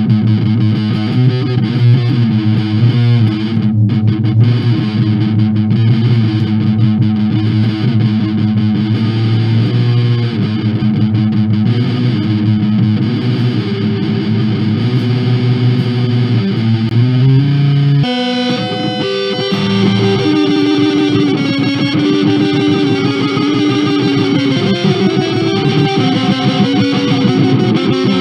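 Music led by a heavily distorted electric guitar, holding low sustained notes, then switching abruptly about 18 seconds in to a higher-pitched passage.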